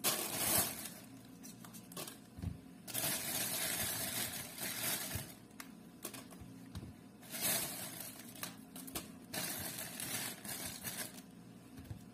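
Thin plastic bag crinkling and rustling in uneven stretches, with small clicks and knocks, as small oranges are handled in and out of it.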